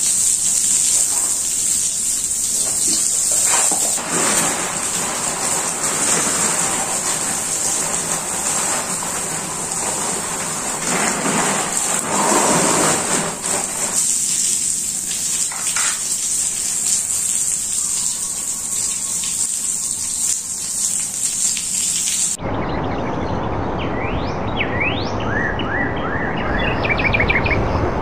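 Water from a garden hose spraying onto a tiled floor and plants: a steady hiss with splashing. About 22 seconds in it cuts off abruptly, and birds chirp over a quieter background.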